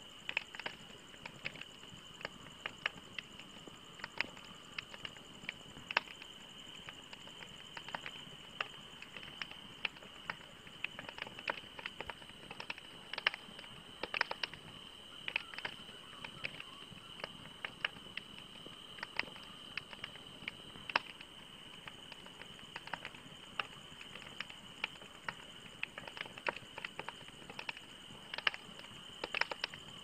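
Wood fire crackling: irregular sharp pops and snaps from burning logs, several a second, over a steady faint high-pitched tone.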